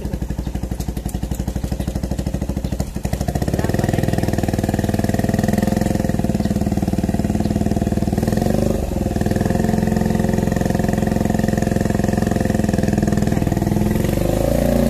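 Motorcycle engine running at low revs, with an even firing pulse throughout; it grows louder and steadier about three and a half seconds in and dips briefly a little past halfway.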